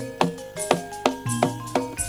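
Live campursari band playing dance music: sharp drum strokes about twice a second over ringing pitched notes.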